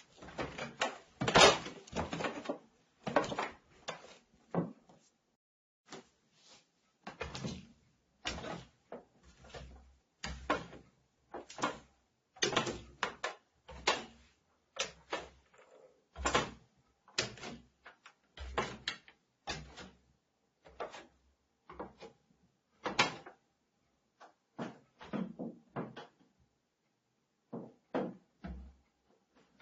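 Barefoot footsteps on wooden stairs, the boards creaking and squeaking under the weight. The steps come unevenly, about one or two a second, with a few short pauses.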